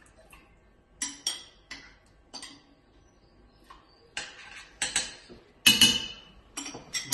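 Glass bottle clinking and knocking against a stainless steel pot, a string of separate sharp knocks at uneven intervals, loudest near the end.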